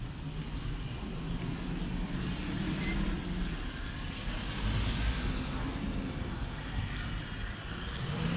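Road traffic passing: vehicle engines and tyres making a steady rumble that swells briefly about five seconds in.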